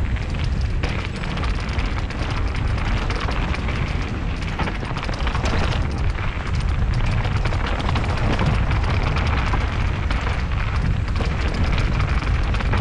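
Mountain bike riding fast down a dirt and gravel trail: a steady low wind rumble on the action camera's microphone, with many small knocks and rattles as the tyres and bike go over stones and bumps.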